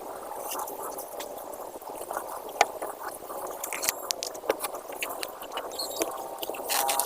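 Kinetic sand being worked, likely cut or crumbled: a soft grainy hiss with scattered small crunches and clicks, coming thicker in the second half.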